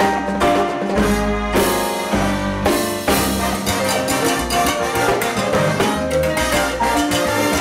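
Live salsa band playing: keyboard piano, upright bass, congas and timbales, with a trombone and trumpet section playing held chords over the rhythm.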